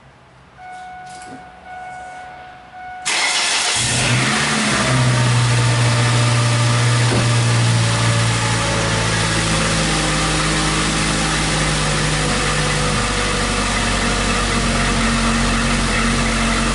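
A few short electronic beeps, then the Ford Focus engine cranks and fires about three seconds in and settles into a steady idle: the first start after repairs for a rich-running misfire.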